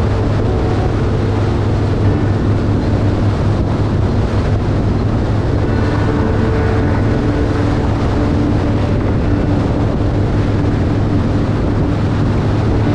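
Harley-Davidson V-twin motorcycle cruising at steady highway speed: a constant low engine drone with wind rushing over the microphone.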